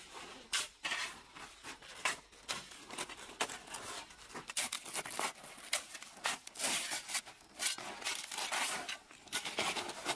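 Irregular rustling and crackling, with many scattered sharp clicks.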